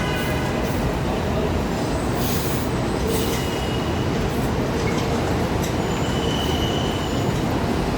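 New York City subway train running through the station, a steady heavy rumble of wheels on rail with faint high wheel squeals coming and going.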